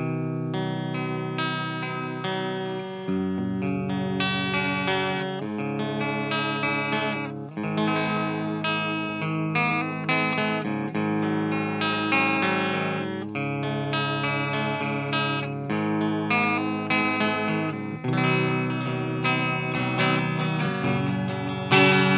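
Kramer Baretta Special electric guitar played through the clean channel of an EVH 5150 EL34 50-watt amp, recorded raw from the cabinet with no effects. Chords and notes are left ringing, with a new one struck about every second.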